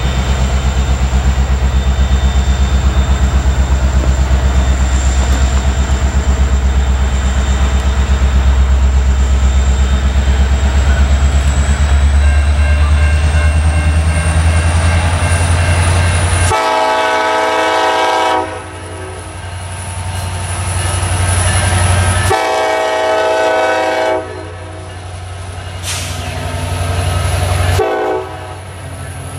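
Freight train's diesel locomotive pulling away with a heavy, steady engine rumble. Then its air horn sounds a chord of several notes in three long blasts of about two seconds each, with a fourth starting at the end.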